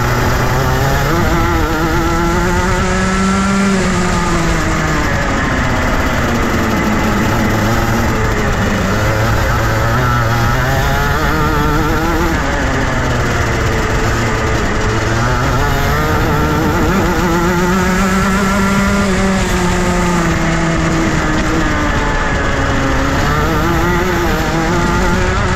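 Junior Rotax 125 cc single-cylinder two-stroke kart engine running hard on track, its pitch climbing and dropping again and again as the revs rise and fall.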